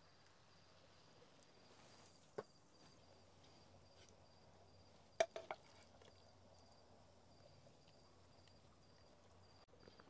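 Quiet night air with crickets chirping faintly and steadily. A light click comes about two seconds in, and a quick cluster of three clicks about five seconds in.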